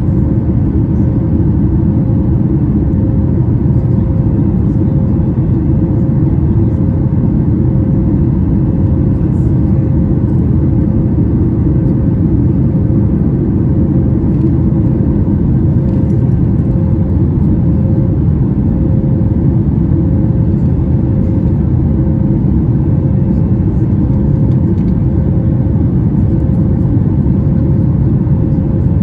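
Cabin noise inside a Boeing 737 MAX 9 airliner in flight: its CFM LEAP-1B engines and the airflow make a loud, steady, deep rumble with a faint steady hum above it.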